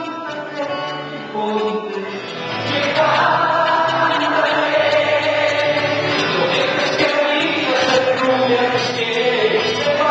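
A man singing into a microphone while strumming an acoustic guitar. About two and a half seconds in the singing grows louder and fuller as many voices join in, like a congregation singing along.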